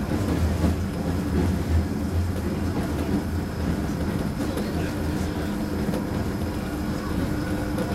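DisneySea Electric Railway's elevated electric train running on its track, heard from inside the car: a steady low rumble of wheels on rail with a faint steady whine above it.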